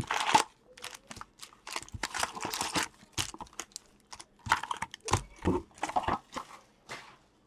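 Foil-wrapped hockey card packs crinkling and rustling as they are pulled from an opened cardboard box and spread out on a table: a run of short, irregular rustles.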